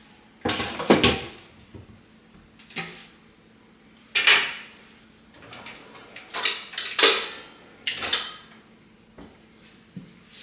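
Pans, dishes and metal utensils clattering as they are handled, in about half a dozen short separate bursts.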